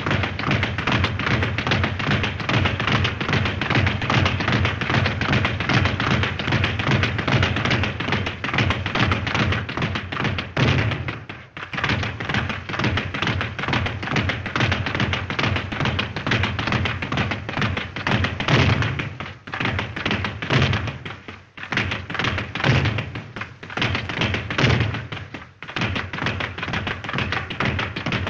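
Boxing speed bag being punched in a fast, steady rhythm, the bag rattling back and forth against its rebound platform in a continuous drumming of taps and thuds. The rhythm breaks off briefly a few times and then picks up again.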